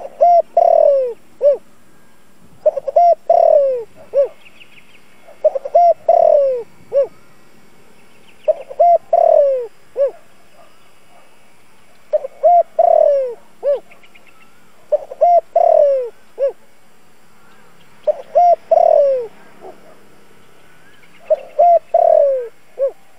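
Spotted dove cooing its song: eight phrases spaced about three seconds apart, each a couple of short notes, a longer falling coo and a short closing note. This is a decoy bird's call, used to draw in wild spotted doves.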